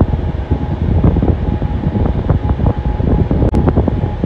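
Loud, gusty low rumble of wind buffeting the microphone, rising and falling irregularly, with a brief dropout about three and a half seconds in.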